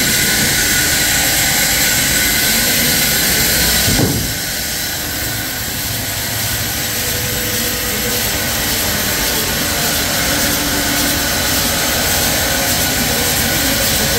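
Sawmill machinery running with a steady, loud roar and hiss. A knock about four seconds in, after which it runs a little quieter.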